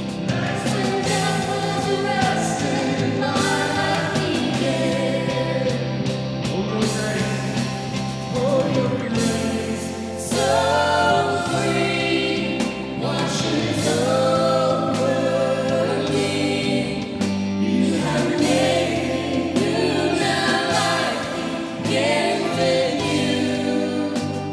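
Worship song: a band with a steady beat and held bass notes, with several voices singing together.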